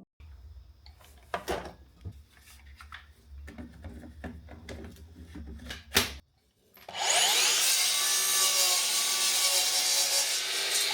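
A power saw spins up about two thirds of the way in, runs loudly through a cut in pallet wood, and winds down near the end. Before it there are scattered knocks and clicks of wood being handled over a low hum.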